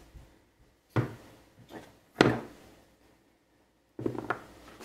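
Chef's knife chopping through zucchini onto a plastic cutting board: two sharp chops a little over a second apart, the second the loudest, then quieter knocks near the end.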